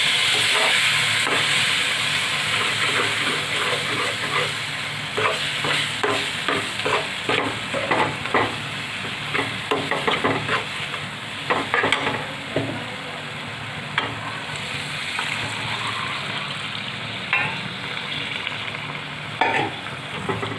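A wheat-flour and besan mixture, roasted in ghee with water just added, sizzles and bubbles in a pan while a spoon scrapes and knocks against the pan as it is stirred. The sizzle is loudest at first and dies down gradually. The scraping clicks come thick from about four seconds in.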